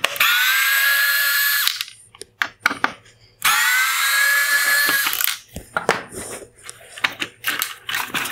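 Electric screwdriver spinning out the T20 Torx screws that hold the headlight's cooling fan: two runs of steady whirring, each about a second and a half long. These are followed by scattered clicks and rattles of plastic parts as the fan housing is worked loose.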